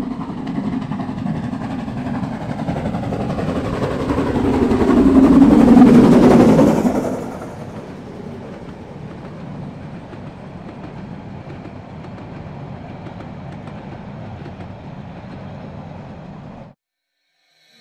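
A Harz narrow-gauge steam train passes close by. It grows louder to a peak as the locomotive goes by about six seconds in, then drops to a steadier rumble of the coaches rolling past on the rails. The sound cuts off abruptly about a second before the end.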